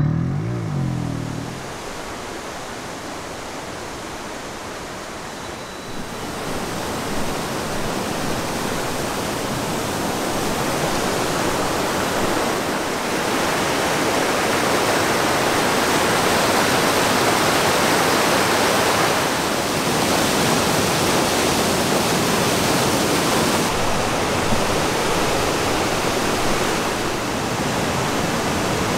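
River rapids rushing over boulders, a steady dense noise of whitewater that grows louder about six seconds in. At the very start a two-stroke motorcycle engine rises briefly in pitch and dies away.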